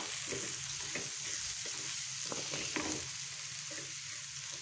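An onion, capsicum and green-chilli masala sizzling in a metal pan while a steel spoon stirs it, with short scrapes of the spoon against the pan every half second or so. The ground spice powders and turmeric are being fried into the onions.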